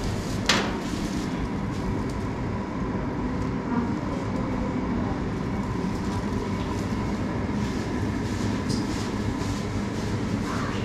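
Steady low mechanical rumble with a faint steady hum, and a sharp click about half a second in.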